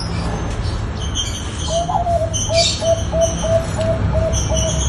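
Bangkok-type zebra dove cooing: a run of short, evenly spaced coo notes at about four a second, starting a little under two seconds in. Small birds chirp high above it over a steady low rumble.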